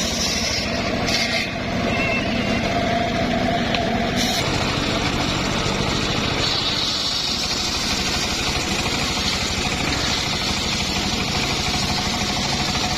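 Engine of a homemade circular-saw sawmill running steadily, with an even, rapid low pulse.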